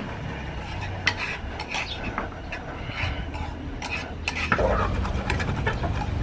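A metal spoon stirring and scraping mixed vegetables in a nonstick frying pan on a portable gas burner, with scattered clinks and scrapes. About four and a half seconds in, it gives way to a louder, denser rush of noise.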